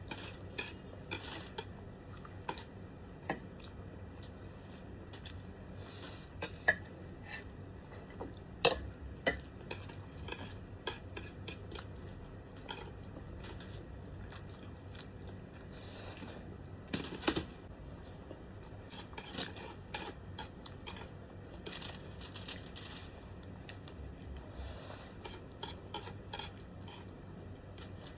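Cutlery clinking and scraping against a dish at irregular moments, in scattered short clicks, while noodles are eaten.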